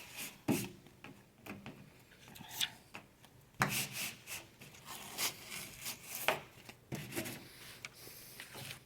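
Vinyl lettering being rubbed down by hand through its masking tape, applied dry without water: irregular rubbing strokes with a few sharp knocks.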